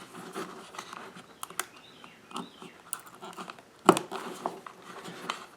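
Light rustling and scattered small clicks of wires and plastic connectors being handled and plugged onto a lathe controller board, with one sharper click about four seconds in.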